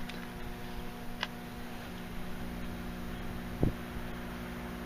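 Microwave oven running: a steady mains hum from its high-voltage transformer with the shaded-pole cooling fan. There is a light click about a second in and a short knock near four seconds.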